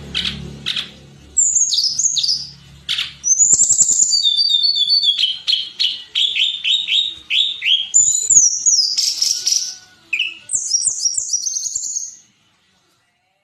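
Tledekan gunung songbird singing a fast, varied song of high chirps and quick runs of short descending whistled notes, stopping near the end.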